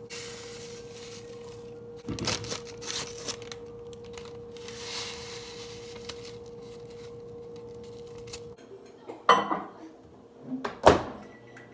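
Microwave oven humming steadily while it heats, stopping about eight and a half seconds in, followed by two sharp clunks as its door is opened. Before that, a paper instant-oatmeal packet tears open and dry oats pour into a ceramic bowl.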